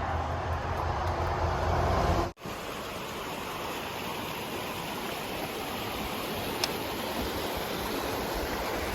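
A low engine rumble for about two seconds that cuts off abruptly, followed by a steady rushing noise.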